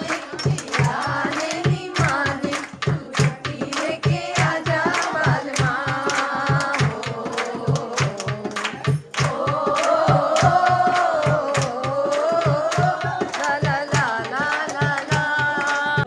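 A dholak (dholki drum) played in a steady beat of about three to four strokes a second, with voices singing along over it.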